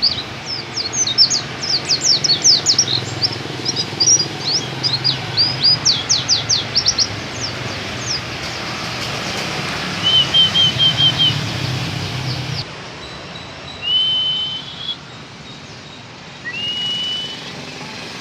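Pleci (white-eye) singing a long, fast run of high chirps and trills in the canary-like burst style called 'tembakan kenari', then a quick run of five short notes about halfway and two single drawn-out whistles near the end. A low hum runs under the first two-thirds and stops suddenly.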